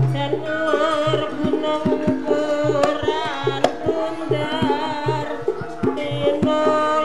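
Javanese gamelan accompaniment for ketoprak: kendang hand-drum strokes in a quick, busy rhythm with low booming notes, under a wavering high melody line.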